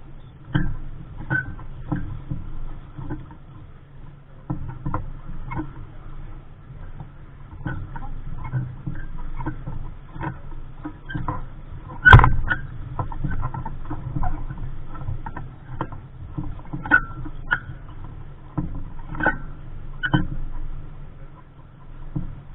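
Capri Coronado 15 sailing dinghy underway: irregular slaps and knocks of water and gear against the hull over a low steady rumble, with one much louder knock about halfway through.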